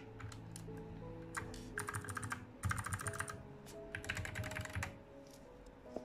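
Keys of a Gamakay MK61 mechanical keyboard with Gateron optical switches being pressed rapidly, in three quick bursts of clicks about two, three and four seconds in.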